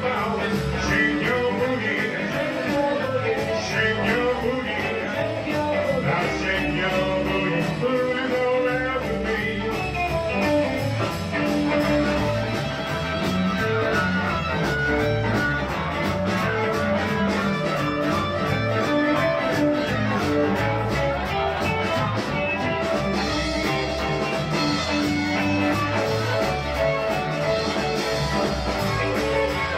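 Live band playing blues-style rock and roll: electric guitar, bass guitar and drum kit keeping a steady beat, with the singer playing harmonica partway through.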